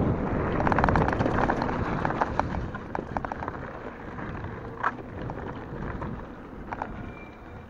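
Bicycle tyres rolling over a gravel dirt track with wind rushing over the microphone, and scattered ticks and crunches of small stones under the wheels. The rush is loudest in the first couple of seconds, then dies down.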